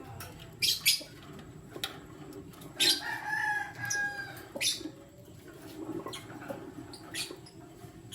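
A pair of lovebirds, one of them a lutino, chirping: short, sharp, high calls come at irregular intervals, with a longer drawn-out call about three seconds in.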